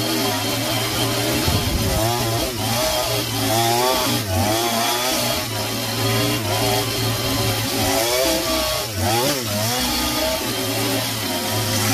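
50cc-class two-stroke chainsaw cutting under load, plunged into the end of a log to hollow out its core. The engine runs continuously, its pitch wavering up and down again and again as the chain bites into the wood and frees.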